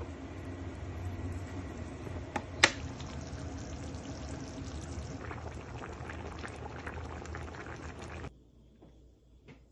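Thick peanut sauce bubbling in a pan, with small pops, over a steady low hum. A single sharp click stands out about two and a half seconds in. The sound cuts off suddenly near the end.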